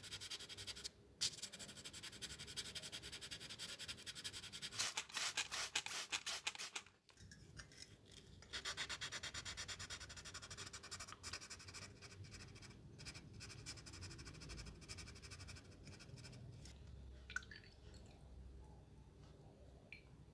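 Fast, repeated rubbing strokes of hand scrubbing or sanding on a small model-car part, loudest about five to seven seconds in, breaking off briefly near seven seconds and then going on more softly.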